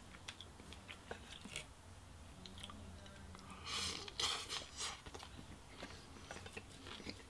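A person chewing a mouthful of food, with faint wet mouth clicks and two louder noisy bursts about four seconds in.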